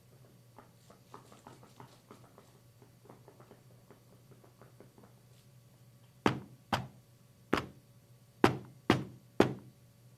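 Six loud, sharp knocks in two sets of three, a sound effect performed live as foley, after several seconds of faint light tapping.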